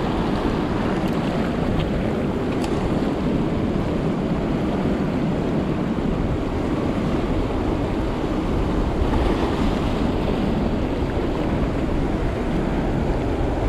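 Rough sea washing and churning around a wading angler on a reef, with wind buffeting the microphone, steady throughout.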